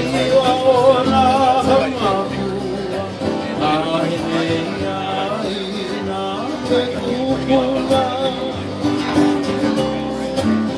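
Live Hawaiian hula song: a voice singing with vibrato over an instrumental accompaniment, continuous.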